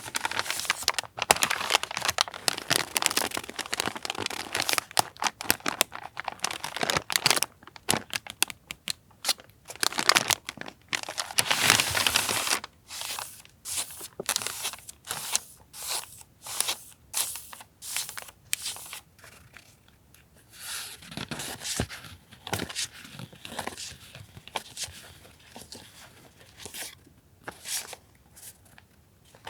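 Paper being handled, crinkled and torn: a dense run of crinkling and tearing for about the first twelve seconds, then sparser light clicks, taps and short rustles.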